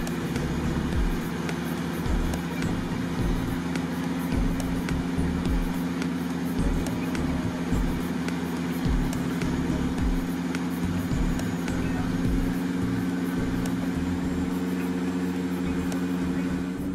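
Steady drone inside the cabin of a DHC-6 Twin Otter from its two Pratt & Whitney PT6A turboprops and propellers, heard on final approach, with an uneven low rumble beneath the propeller hum.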